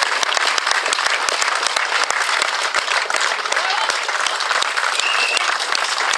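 Crowd applauding steadily, with many sharp single hand claps standing out.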